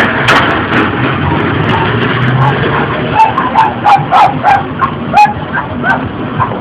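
A dog yapping in quick short barks, about three a second for some three seconds from about three seconds in, over a steady background din.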